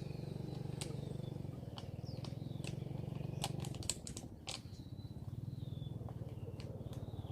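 A steady low pulsing drone, fading briefly about four seconds in, with scattered sharp clicks and a few short high chirps from birds.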